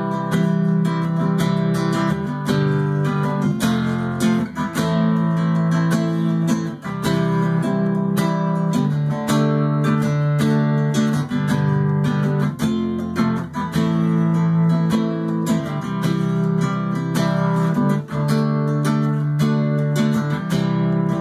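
Acoustic guitar strumming chords, with a steady run of strokes and changing chords.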